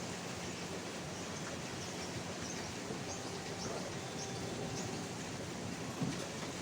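Steady hiss of falling rain, with a few faint high chirps in the middle and a single click near the end.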